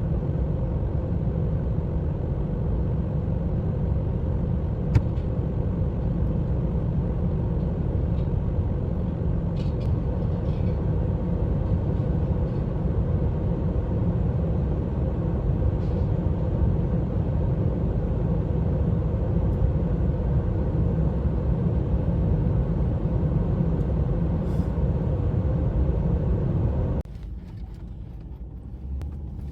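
A vehicle driving, with a steady low rumble of engine and road noise. There is a single sharp click about five seconds in, and the rumble drops off suddenly near the end.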